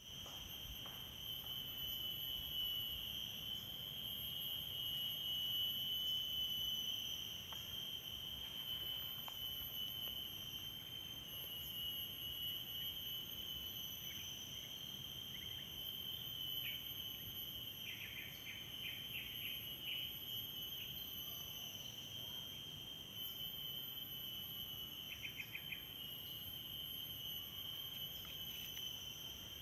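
Insects trilling outdoors in one steady, high, unbroken tone. Short runs of quick chirps come in twice in the second half.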